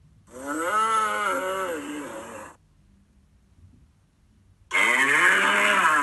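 Bull-like bellow sound effect of a cartoon combine harvester, given twice: a long moo-like call of about two seconds that rises and falls in pitch, then a second one starting near the end.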